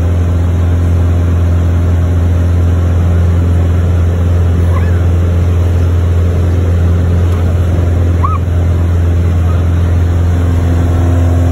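Piper Cherokee PA-28's engine and propeller running steadily as a deep, loud drone, heard inside the cabin.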